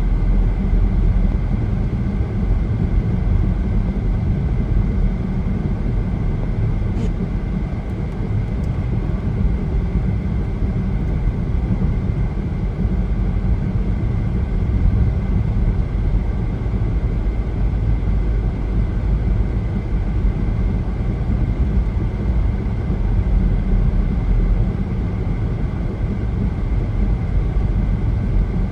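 Steady low rumble of tyre and road noise inside a car cruising on a highway, with a faint steady high-pitched tone over it.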